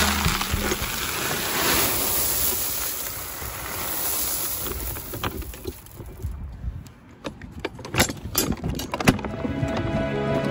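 Loose roof gravel sliding out of a tipped plastic wagon tub and pouring into a pickup truck bed: a steady rushing hiss of stones, then scattered clacks of pebbles landing in the last few seconds.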